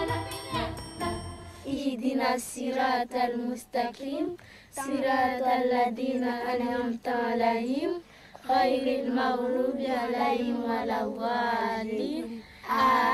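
Background music ending about two seconds in, then a group of children chanting a prayer in Arabic in unison: several long, held sung phrases with brief pauses between them.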